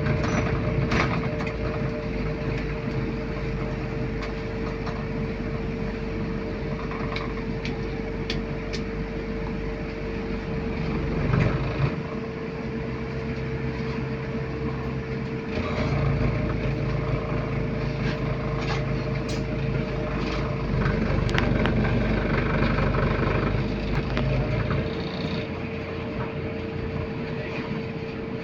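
City bus heard from inside the cabin while riding: a low engine drone that eases off and picks up again a few times, a steady whine, and scattered rattles and clicks from the bus interior.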